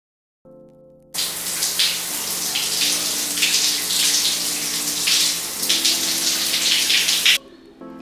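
Overhead rainfall shower head running, a steady hiss of spraying water that starts about a second in and cuts off suddenly near the end.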